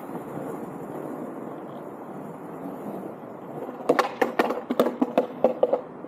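Landyachtz Dinghy cruiser skateboard rolling with a steady rumble of its wheels on pavement. About two-thirds of the way in comes a quick run of about a dozen sharp clacks, the loudest sounds here, as the wheels cross the joints of paving slabs.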